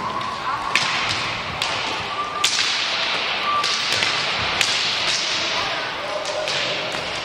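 Scattered sharp knocks of roller hockey sticks hitting the hard rink floor, about one a second, echoing through a large sports hall over a steady background hubbub.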